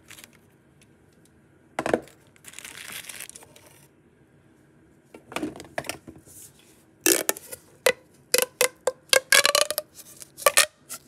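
Fidget toys being handled and packed back into their boxes: a knock about two seconds in, a brief rustle of packaging, then a quick run of clicks and taps in the last few seconds.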